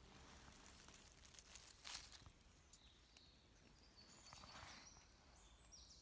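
Very faint woodland ambience: soft rustling with a single crackle about two seconds in, then faint, high birdsong notes in the second half.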